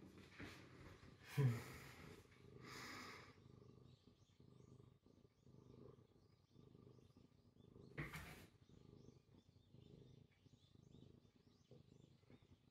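Domestic cat purring softly while held in a person's arms: a low pulsing rumble that swells and fades a little more than once a second. Two brief louder handling noises break in, about a second and a half in and again about eight seconds in.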